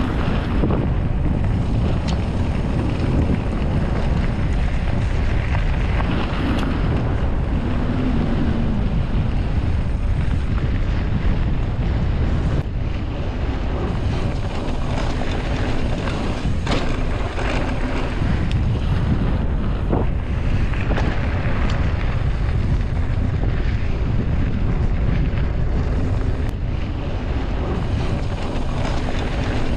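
Wind buffeting the microphone of a mountain bike's action camera over the steady rumble of riding on a rough trail, with a few sharp knocks from bumps.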